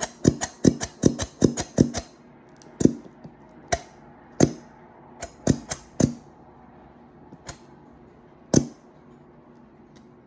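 Slime being stirred in a bowl, the utensil clicking sharply against the bowl about four times a second at first. After about two seconds it slows to single clicks every second or so.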